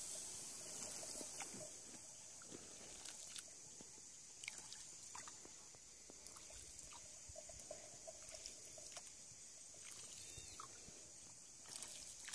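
Quiet scene from a wooden rowboat being paddled on still water: faint scattered drips, small splashes and soft knocks over a steady high hiss.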